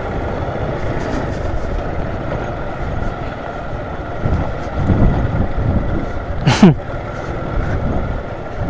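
Small motorcycle engine running, with the engine speed rising and falling a few times in the middle. About six and a half seconds in there is a brief sharp sound with a falling pitch, the loudest moment.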